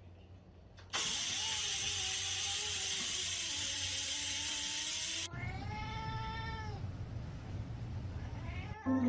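Domestic cat yowling in a long, drawn-out meow that bends slowly in pitch, rising and falling again before fading. A loud hiss of noise lies over the first half and cuts off suddenly.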